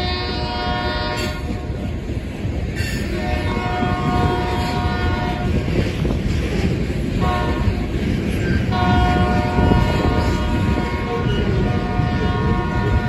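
Diesel locomotive horn sounding the grade-crossing pattern: the end of one long blast, another long blast, a short blast, and a final long blast starting a little past the middle. Under it, the steady rumble of loaded hopper cars rolling along the rails.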